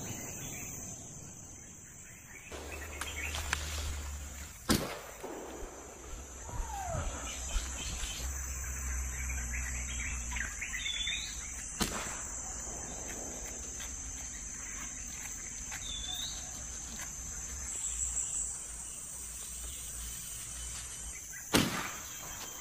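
Outdoor ambience of scrub woodland: a steady high insect drone, patches of low rumble from wind and handling on the microphone, and a few short bird chirps. Sharp bangs come about five seconds in, near the middle, and loudest near the end.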